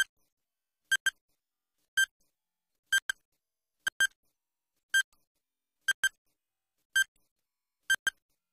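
Quiz countdown timer sound effect: short electronic beeps about once a second, some of them in quick pairs, ticking off the seconds of a 10-second answer clock.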